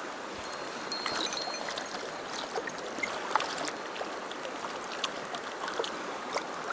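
Mountain stream rushing steadily, with scattered short sharp ticks over it.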